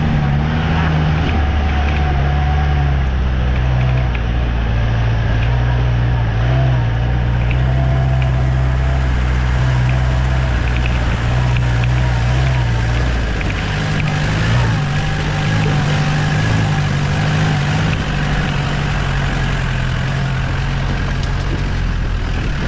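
Isuzu V-Cross pickup's diesel engine running steadily, its note shifting about halfway through.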